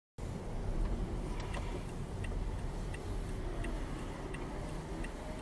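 Car turn-signal indicator ticking inside the cabin, about one tick every 0.7 seconds, over a low steady rumble of the stopped car. The ticking starts about a second and a half in.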